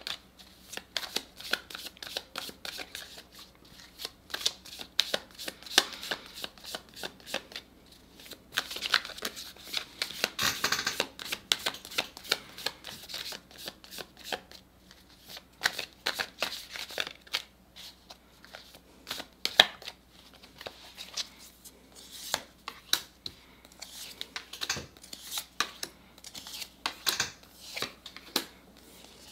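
A deck of tarot cards being shuffled by hand, with many quick clicks and rustles of card edges and a longer run of rustling about ten seconds in. Near the end, cards are dealt out onto a wooden table.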